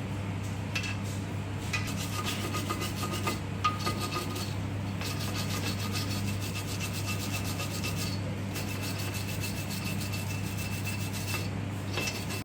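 Quick repeated scraping and rubbing on metal inside a rear differential housing, as shrapnel from the failed crown wheel and pinion is cleaned out, over a steady low hum.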